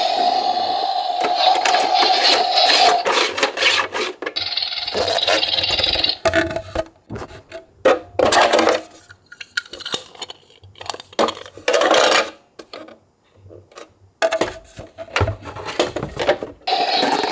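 Plastic clicks, knocks and scraping as a large plastic toy garbage truck is handled and its rear hopper is opened, with quiet gaps between. A steady electronic sound plays in the first few seconds and briefly again a little later.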